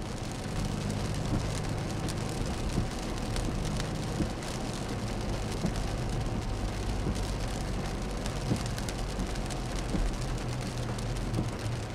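Car cabin noise while driving on a wet road: a steady low engine and road hum, with the hiss of tyres on wet pavement.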